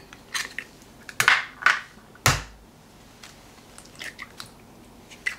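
Raw eggs being cracked open over a bowl: a series of short sharp taps and shell crackles, the loudest with a dull knock a little over two seconds in.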